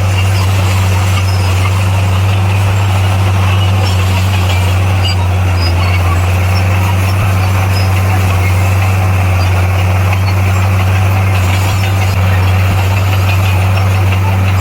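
Bulldozer's diesel engine running steadily, a constant low drone that holds the same pitch throughout.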